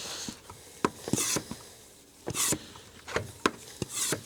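Manual vacuum oil extractor being hand-pumped: a short hiss of air with each stroke, about one stroke every second, with small clicks of the pump between them.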